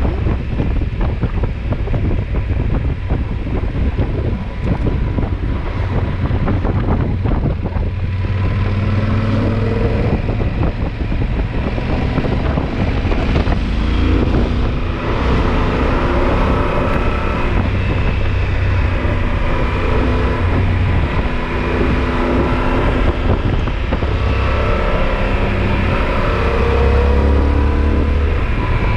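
Yamaha XT1200Z Super Ténéré's parallel-twin engine running under way, with wind buffeting the microphone. The wind covers the first third. From about eight seconds in, the engine note comes through more clearly, rising and falling in pitch as the rider changes speed and gears.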